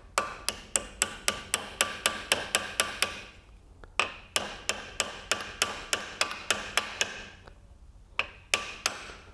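Small hammer tapping a steel needle-roller bearing cap down into the yoke of a Hardy Spicer universal joint: quick light metal taps, about five a second, in two long runs with a short pause between, then a few slower taps near the end.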